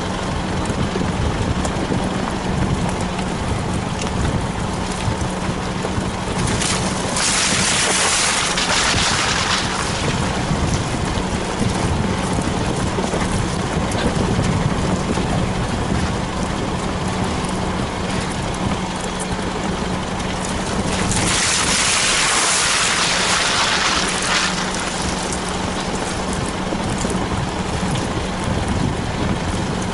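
Isuzu 4WD driving along a muddy off-road track: a steady engine drone under rumbling tyre and body noise. Two louder hissing surges of about three seconds each come about a quarter of the way in and again about two-thirds of the way through.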